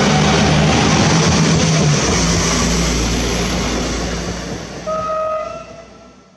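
Pesa SA134 diesel railbus passing close by: loud engine and wheel noise that drops to a low rumble and then fades away. A short steady tone sounds about five seconds in.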